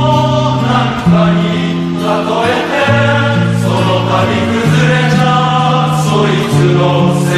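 Background music: slow, sustained chords that change every second or two, with no lyrics sung in this stretch.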